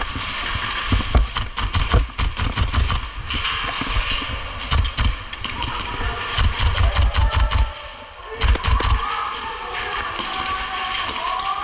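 Movement and handling noise on a body-worn GoPro: irregular low thumps with many sharp clicks and knocks, and two louder cracks about eight and a half seconds in.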